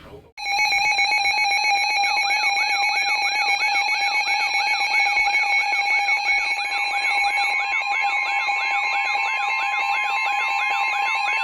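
Emergency weather alert receivers sounding their alarm tones ahead of a severe thunderstorm warning. A loud, steady, buzzy electronic tone starts about half a second in. About two seconds in, a rising chirp joins it, repeating about two and a half times a second, and from about the middle a steady single tone joins as well.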